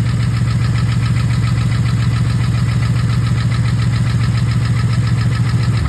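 Car engine idling steadily, a loud, even low hum.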